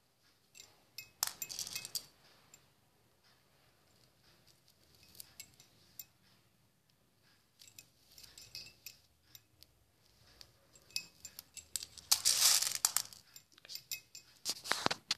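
Small plastic beads clicking and chinking against a steel bowl as a needle is dipped in to pick them up for threading. The clicks come in clusters, one about a second in and the loudest near the end.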